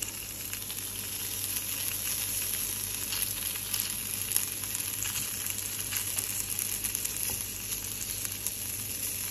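Sausage pieces sizzling in a frying pan: a steady hiss dotted with many small crackles.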